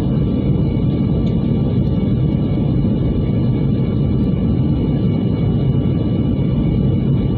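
Steady cabin noise of a Boeing 737-800 in flight: a dense low roar of airflow and CFM56 jet engines with faint steady whining tones above it.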